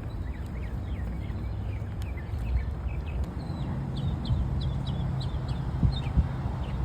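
Small birds chirping: many short, quick calls repeating one after another over a steady low rumble.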